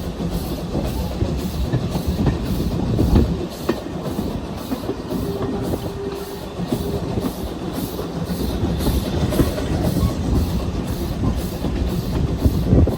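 Train running on rails, a steady low rumble with wheels clicking over the track, and a brief steady squeal-like tone about five seconds in.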